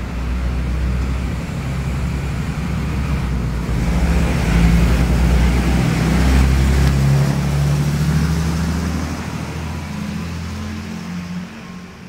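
Old DB Uerdingen railbus (Schienenbus) pulling out past on departure, its diesel engine running under load with the run of the cars over the rails. The sound grows louder about four seconds in as the cars go by, then fades as the train draws away, dropping off near the end.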